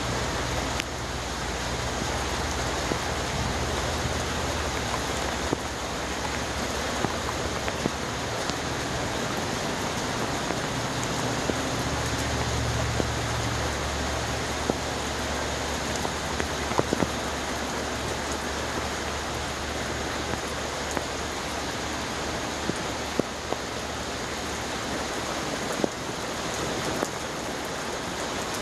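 Steady rush of water with scattered small drips and taps.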